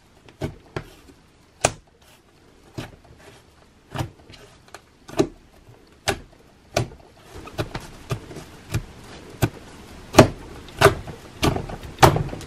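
Fingers poking and pressing a mound of homemade glitter slime, making sharp wet pops and clicks as trapped air bursts out of the holes. The pops come irregularly at first, then from about halfway come every half second to second over a soft steady squishing.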